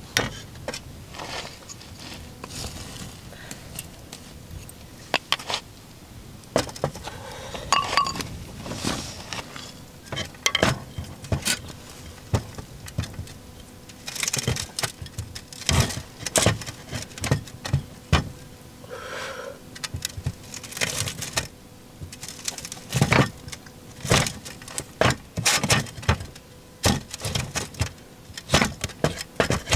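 Large kitchen knife cutting into a grilled fish and knocking on a wooden serving board: a run of irregular sharp clicks and knocks, busier and louder in the second half.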